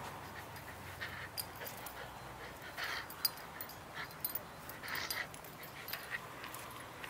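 Siberian husky puppy tugging on a rope toy, giving a few short vocal sounds about two seconds apart, with light scuffs and clicks from the toy and play.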